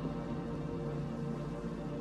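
Background ambient music with sustained low drone-like tones.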